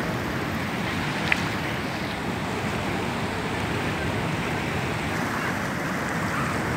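Seawater from a sea surge rushing and washing over flooded ground in a steady, unbroken rush, with one brief sharp click about a second in.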